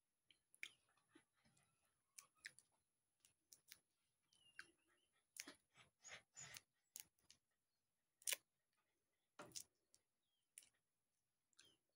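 Faint, scattered clicks and small cracks of fingernails peeling the skin off a boiled jackfruit seed, the two loudest about eight and nine and a half seconds in.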